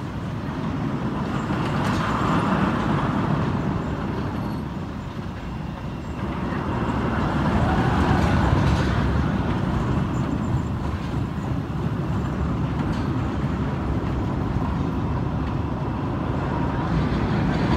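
Anaconda, an Arrow Dynamics steel looping roller coaster: its train rumbling along the track, growing louder twice as it passes.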